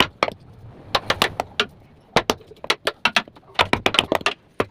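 Quick, irregular sharp clicks and knocks in clusters, from a nylon-rope cot being woven on its wooden frame.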